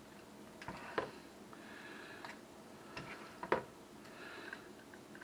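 Metal kitchen tongs clicking and tapping while spreading raw chicken pieces in a disposable aluminium foil pan, with soft scraping of food and foil in between; two sharper clicks, about a second in and about three and a half seconds in.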